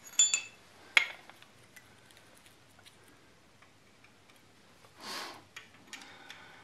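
Sharp metallic clinks of hand tools against an A-series engine's valve rocker gear during valve clearance adjustment. The first two ring briefly, another follows about a second in, then a short rustle and a few faint ticks near the end.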